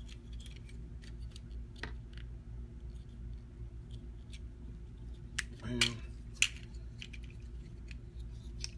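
Plastic parts of a Warbotron Turbo Ejector transforming robot figure clicking and rattling as it is handled, with a few sharper clicks about halfway through as the arm and fist parts are moved.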